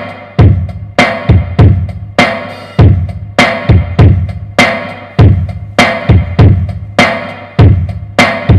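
Recorded drum kit playing a steady beat of kick, snare and cymbal hits, a little under two hits a second, played from a laptop through the mixer and the home-built stereo power amplifier as a sound test.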